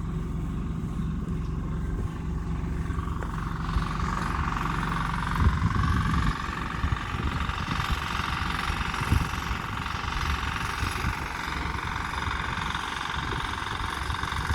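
A motor vehicle's engine running steadily, its low hum giving way about six seconds in to a steady rushing noise.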